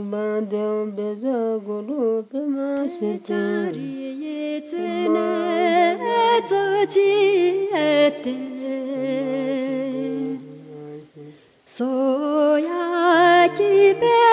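Unaccompanied singing voice in a slow, ornamented melody with gliding pitch and wide vibrato. About six seconds in, a lower sustained part joins beneath it; the singing breaks briefly just after eleven seconds and then resumes.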